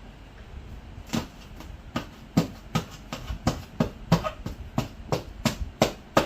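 A rapid series of sharp snaps and clicks, about three a second, from a sealed parcel's plastic packaging being forced and torn open by hand. It starts about a second in.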